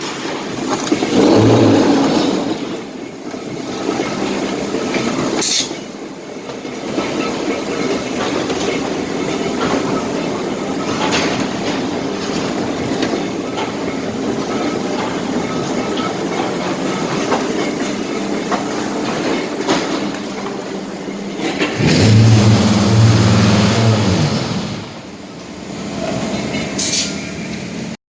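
Pumice (bims) concrete block-making machine running with a continuous mechanical clatter. It gives two loud low hums, one brief one about a second and a half in and a longer one from about 22 to 24.5 seconds in, and a few sharp metallic clanks.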